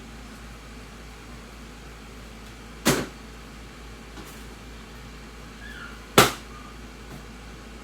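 Two sharp knocks, about three seconds apart, the second louder, over a steady low hum.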